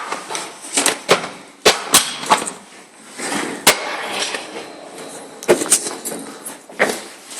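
Irregular sharp knocks and rattling clatter of a door and a kick scooter being handled as the door is worked open one-handed.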